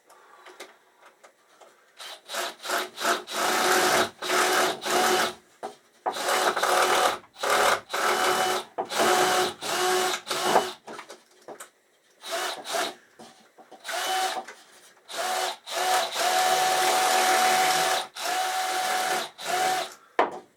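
Power drill run in repeated bursts of about half a second to two seconds, the trigger squeezed and released, each burst carrying a steady whine; it starts about two seconds in and the bursts run on to the end.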